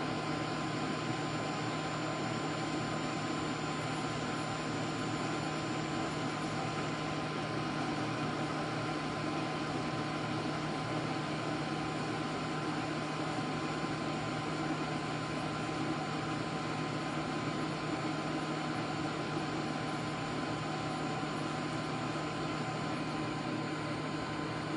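Steady rush of air from a Metcal HCT2-200 hot air rework pencil, over a low hum and a thin high tone.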